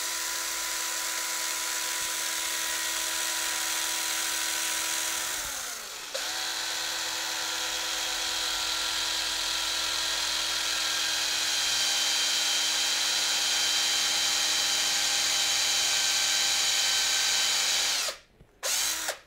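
Cordless drill with a 3 mm bit drilling a pilot hole into a speargun muzzle, a steady motor whine. About six seconds in the motor winds down and picks up again, and it stops near the end after a brief final burst.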